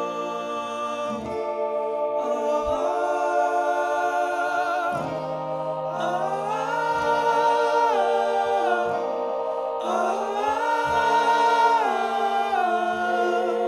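Male voices singing in harmony, holding long notes that slide between pitches, over acoustic guitars and a keyboard in a stripped-down live band performance.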